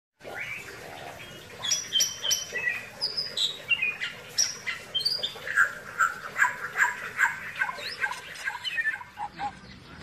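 Bali myna (Bali starling) singing a rapid, varied string of clear whistled notes, many of them sliding down in pitch. The notes sit higher in the first half of the song and lower in the second half.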